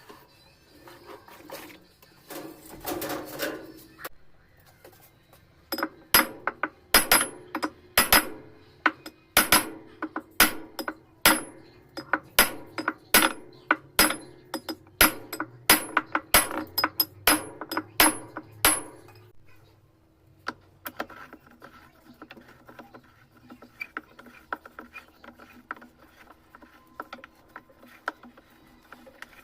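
Repeated sharp metallic knocks, about two or three a second for some thirteen seconds, each with a brief high ring, as metal parts of a washing-machine mechanism are struck during assembly. They give way to lighter, quicker ticking.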